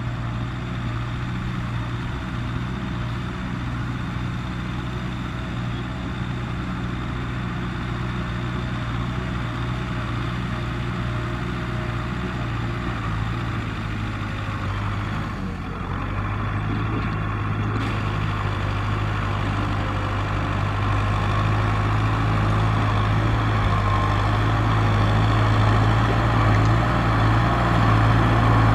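Kubota M6040SU tractor's four-cylinder diesel engine running steadily under load, pulling a loaded trailer through mud. It grows louder over the second half as the tractor comes closer.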